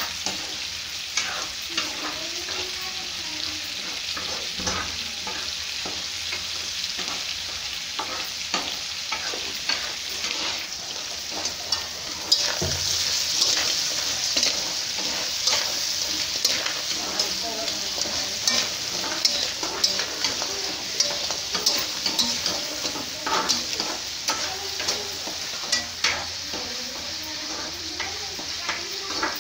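Crab pieces frying in a black kadai (wok), sizzling steadily while a metal spatula stirs them, with frequent clicks and scrapes of the spatula against the pan. The sizzle gets louder a little under halfway through.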